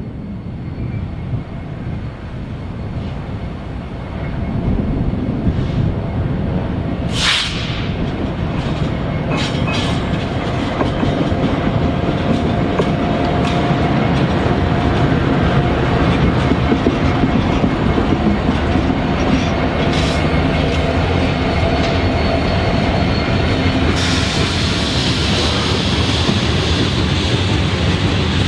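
BNSF freight train led by diesel locomotives approaching and passing, its rumble growing louder over the first few seconds. Covered hopper cars then roll by with steady wheel clatter, and a brighter hiss of wheels on rail sets in near the end.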